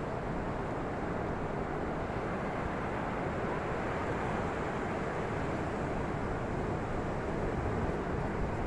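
Steady rushing of ocean surf mixed with wind on the microphone, swelling slightly now and then.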